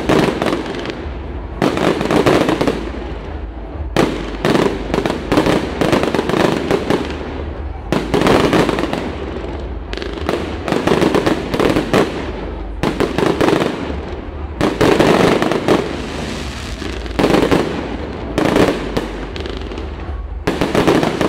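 Aerial fireworks shells bursting in quick clusters of sharp bangs every second or two, each cluster trailing off in a rolling echo.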